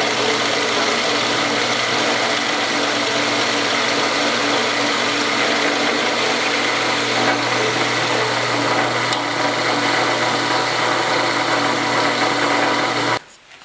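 Electric power tool motor running steadily on the steel bracket, with a constant hum under a loud hiss, shut off abruptly near the end.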